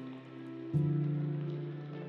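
Background music with soft sustained chords; a new, louder low chord comes in under a second in.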